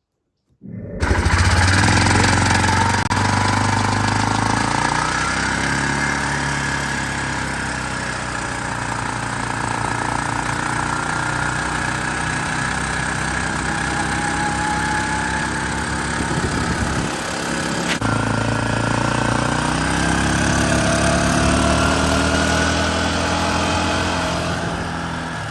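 2005 Arctic Cat 400's single-cylinder four-stroke engine running, its pitch rising and falling several times as it is revved, with the carburetor's main jet freshly screwed back in. The jet had been loose and was making it run rich.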